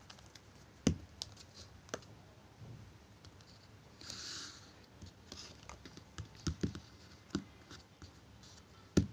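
Small plastic poster-colour jars knocking and clicking on a paper-covered table as they are set down and arranged one by one, with a short rustle about four seconds in.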